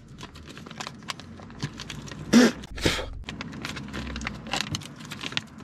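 Paper and packaging being handled: rustling and light clicks as an instruction leaflet is taken out and unfolded. A short vocal sound about two and a half seconds in.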